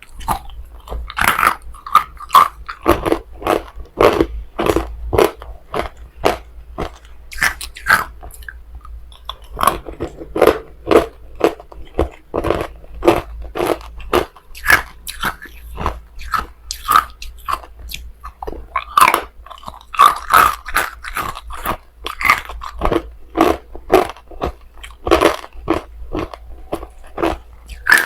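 Hard ice being bitten and chewed close to the microphone: rapid, loud crunches, several a second, with a short pause about nine seconds in.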